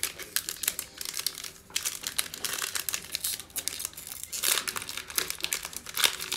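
Foil wrapper of a 2020 Panini Prizm football card pack crinkling and tearing as it is torn open by hand, a dense run of crackles that grows louder a little under two seconds in and again past four seconds.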